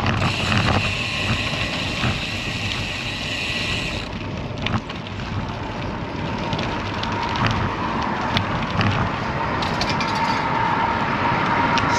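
Road traffic passing close by, with wind rush. A higher hiss in the first four seconds, then a steady hum that grows toward the end.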